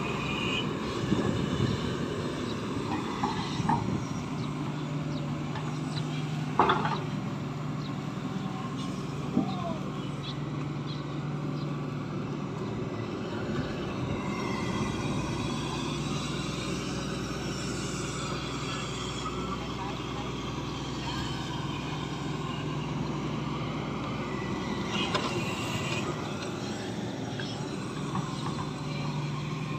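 Diesel engine of a Shantui ME210 excavator running steadily under load while it digs wet mud. The engine note steadies a few seconds in, and there is a sharp knock about a quarter of the way through, with a smaller one soon after.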